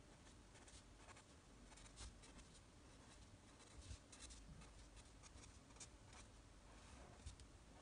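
Faint scratching of a pen on paper, in many short, quick strokes at an uneven pace, as fur is sketched in.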